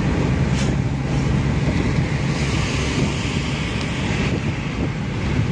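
Steady road and wind noise inside a moving car's cabin at highway speed: low tyre and engine rumble with a rushing hiss.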